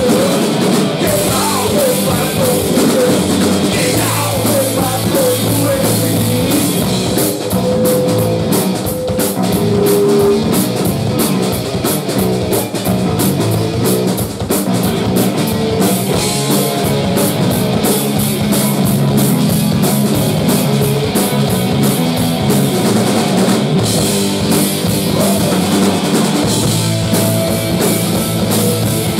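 Rock band playing live and loud: distorted electric guitars, bass and a drum kit, with held lead-guitar notes over the driving beat.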